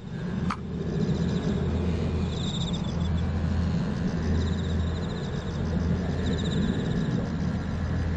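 Small model-airplane engine buzzing faintly high overhead, swelling and fading every couple of seconds, under a steady low rumble of wind on the microphone.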